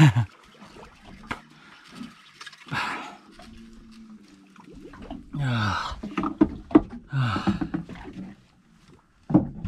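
A person's wordless voice: two drawn-out, breathy groans falling in pitch about halfway through, among scattered light knocks and clicks.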